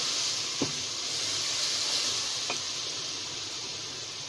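Onions, ginger-garlic paste and spices sizzling in hot oil in an aluminium pressure cooker while being stirred with a wooden spoon, which knocks against the pot twice. The sizzle slowly dies down.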